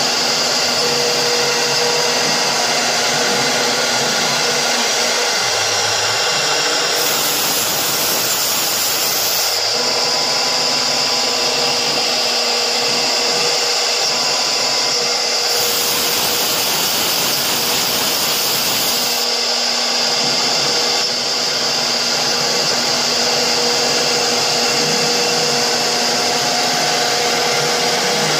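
CNC router spindle running at high speed with its bit routing through fibreboard: a steady high whine over continuous cutting noise. The hiss turns brighter twice for a few seconds.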